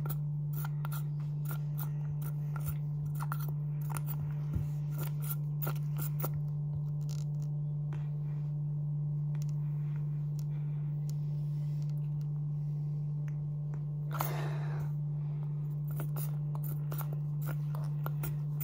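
A steady low hum, with scattered small clicks and crackles from a soft plastic squeeze tube being pressed and kneaded to force out the last of its liquid.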